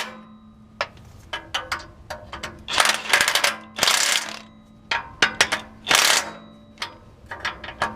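Hand ratchet wrench working the new nuts on the exhaust manifold catalytic converter: short runs of rapid ratcheting with sharp metal clicks and knocks between them.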